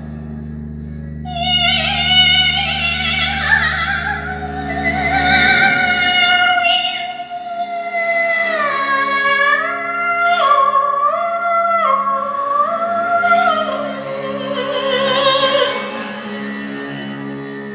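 Slow music: a high, wavering melody line with vibrato, sung in an operatic style, over sustained low drone notes. The deepest drone drops out about five and a half seconds in.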